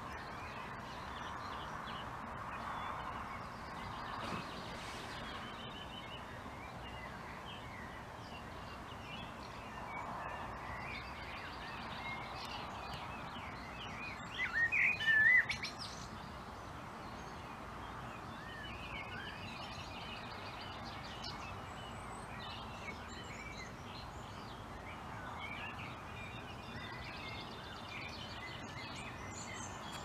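Common blackbird singing close by a couple of times, its loudest phrase about halfway through, over a chorus of other birdsong that includes more distant blackbirds and a steady background of outdoor noise.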